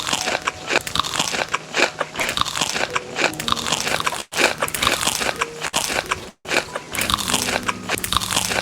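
Crisp food being bitten and chewed close to the microphone, a dense run of loud crunches, cut off briefly twice near the middle.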